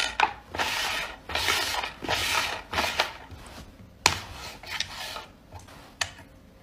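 Plastic lids sliding and rubbing across a tabletop, several short scrapes in the first three seconds, then a sharp click about four seconds in as a lid is knocked.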